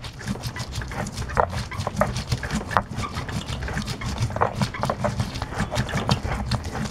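Hand-held stone pestle crushing and grinding fresh chilies on a flat stone grinding slab: repeated irregular stone-on-stone rubbing and knocking strokes.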